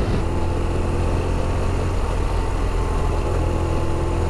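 BMW R1200RT's boxer twin engine running steadily while the motorcycle cruises on the open road, with a constant low hum under even wind and road noise.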